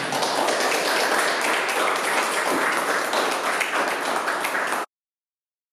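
Applause from a small group of about a dozen people, many hands clapping, which cuts off suddenly about five seconds in.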